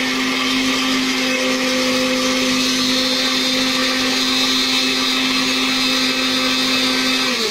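Electric countertop blender running steadily, blending a liquid mix of aloe vera gel, raw egg, honey and coconut oil. It is switched off right at the end and the motor's pitch falls as it winds down.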